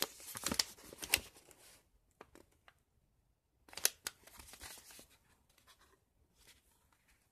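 Ricola cough-drop packaging being handled, rustling and crinkling with small clicks in two spells: through the first two seconds, then again about four seconds in.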